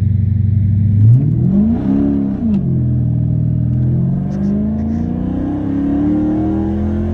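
Chrysler 300 SRT8's 6.4-litre Hemi V8 pulling hard under acceleration. The revs rise quickly from about a second in, drop back as the transmission upshifts, then climb steadily again in the next gear.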